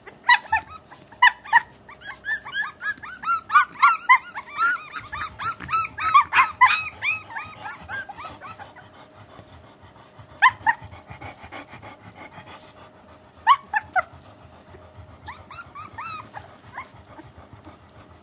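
A litter of young puppies yipping and squealing: many short, high cries in quick succession for the first several seconds, then only a few scattered yelps.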